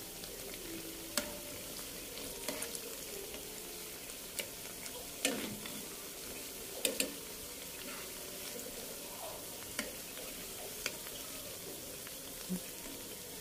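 Battered fermented-cassava fritters frying in oil in a pan, a steady sizzle. Metal tongs turning the fritters give scattered sharp clicks and taps, about eight in all, loudest around the middle.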